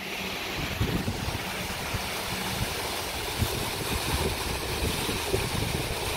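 Water gushing through and over the canal lock gates into the lock chamber, a steady rushing, with wind buffeting the microphone.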